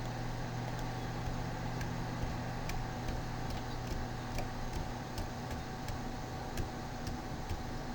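Steady low electrical hum with a faint steady tone above it, and light clicks scattered irregularly through it, roughly one or two a second: mouse clicks while working in film restoration software on a computer.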